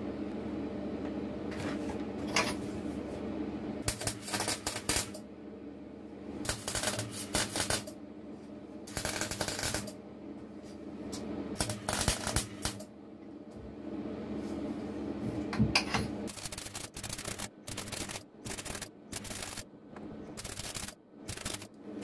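MIG welder tack-welding cutlery handles together: a series of short bursts of arc noise of about a second each, then many quicker, shorter tacks in the last six seconds, over a steady low hum.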